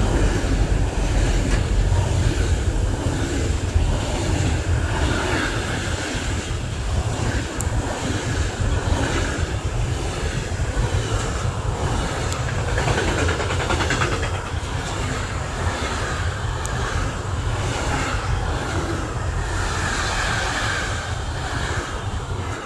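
A railway train passing on the track: steady noise of wheels running on the rails.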